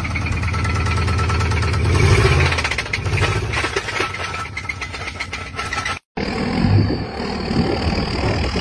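Diesel pickup engine running with a fast, dense clatter, growing louder for a moment about two seconds in. After a sudden cut, another truck's engine runs more unevenly.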